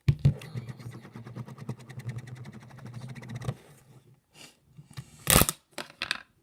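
Crunchy slime full of foam beads crackling as it is handled: a fast run of small crackling clicks for about three and a half seconds, then a few separate louder crunches, the loudest about five seconds in.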